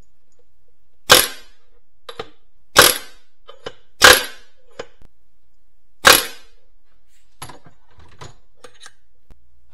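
Four loud, sharp metal strikes on the pin in a Getrag HM290 transmission's shifter, driving it farther out, with lighter taps and clicks between them.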